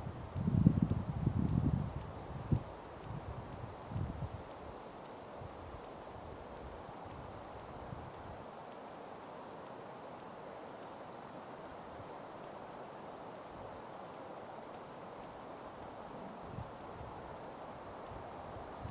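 A short, high, sharp chip call repeated steadily about two to three times a second, from a small animal, over faint low rumbling in the first couple of seconds.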